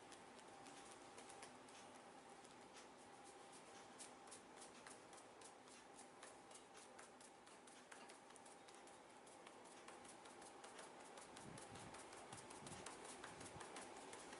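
Faint, quick clicks and taps, several a second, over a faint steady hum: hands working over the head and hair during a head massage.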